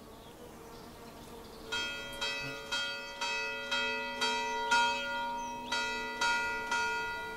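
Church bells ringing: after a quiet first couple of seconds, bells are struck in turn about twice a second, each stroke ringing on as the next comes in.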